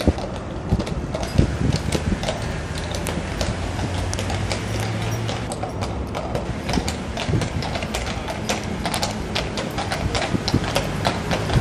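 Hooves of two heavy draught horses clip-clopping on the asphalt as they pull a brewery dray, with the steady low hum of traffic engines underneath. The hoofbeats come thicker in the second half.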